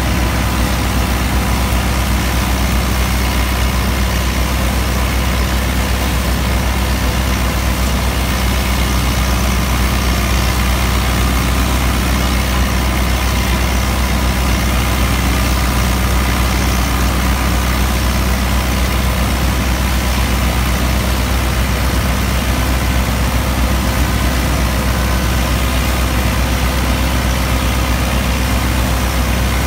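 New Holland Dabung 85 tractor's 85 hp four-cylinder diesel engine running steadily under load, driving a PTO straw chopper that is cutting wheat straw and blowing it into a trolley.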